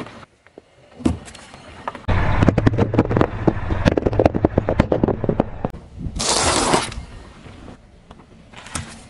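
Car tyre rolling over objects on asphalt and crushing them: a dense run of crackling and snapping with a low rumble under it for about three and a half seconds, then a brief burst of hiss-like noise about six seconds in.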